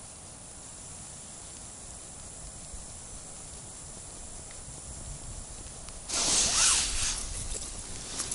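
Steady faint outdoor hiss. About six seconds in comes a sudden loud burst of splashing and scraping, lasting about a second, as a perch is pulled up out of the ice hole, followed by lighter rustles and clicks.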